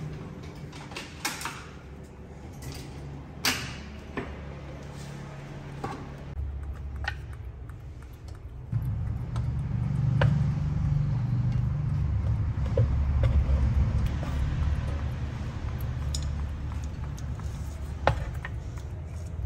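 Kitchen handling sounds: scattered clicks and knocks of a pot, chopsticks and a plate, over a low steady hum that grows louder about nine seconds in.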